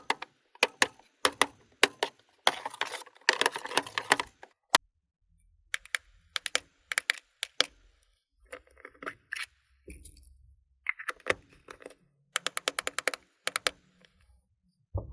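Slime being squished and mixed by hand, giving crisp popping clicks as trapped air bubbles burst. The clicks come in quick runs with short pauses between them, including a fast rattling run near the end.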